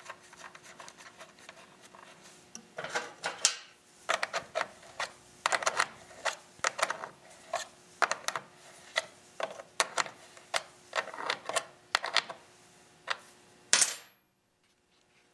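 Small metal hand tool clicking and clinking against the Honda GX31 carburetor's throttle-cable fitting as the cable is tightened down: many irregular sharp metallic taps that stop suddenly near the end.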